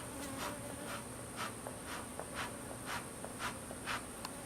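Short scratchy strokes against the wooden beehive as it is worked back together, about two a second.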